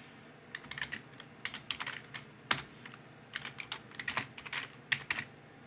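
Keystrokes on a computer keyboard: irregular clicky typing in a few short runs with brief pauses between, one keystroke louder about halfway, as a short DOS command is typed.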